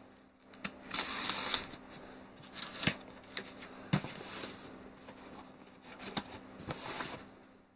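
Packing tape on a cardboard shipping box being slit with a small blade and pulled at: irregular scratchy rasps and rustling, with a few sharp clicks of blade and cardboard.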